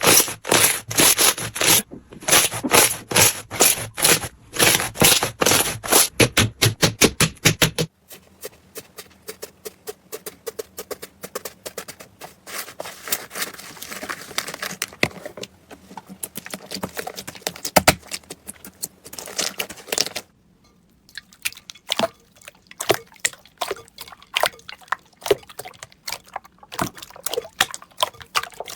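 Slime being squeezed and pressed by hand, giving runs of sharp crackling clicks. About eight seconds in the crackle turns quieter and finer, and about twenty seconds in, after a short pause, it gives way to sparser clicks.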